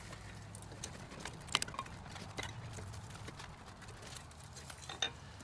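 Light metallic clicks and clinks as the brake pads are worked loose and slid out of the front caliper bracket of a 2000 Ram 2500, with the sharpest click about one and a half seconds in and another near the end.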